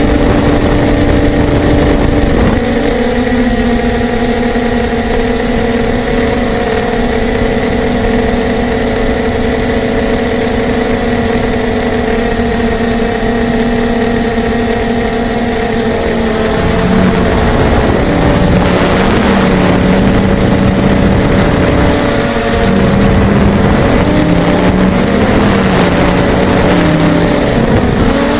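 DJI hexacopter's electric motors and propellers whirring in flight, heard from the onboard camera: a steady multi-toned whine over a noisy rush. A little past halfway the pitch starts wavering up and down as the motor speeds change.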